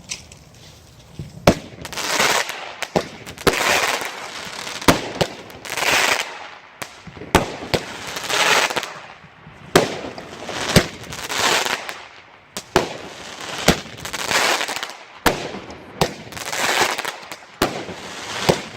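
Pyro Predator 'House of Blues' 8-shot consumer firework cake firing its shots one after another, a shot about every two to three seconds: each a sharp bang followed by a crackling, hissing burst lasting about a second.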